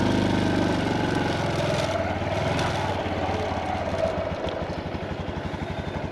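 Honda Super Cub's single-cylinder engine under way on the road, loudest just as the revs build near the start, then running on steadily and slowly easing off, picked up by a rear-facing mic.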